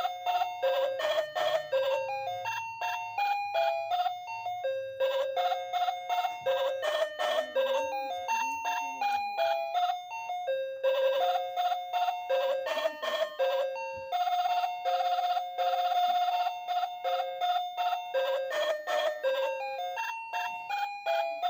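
Background music: a bright, bell-toned melody of short struck notes, repeating the same short phrase about every five seconds.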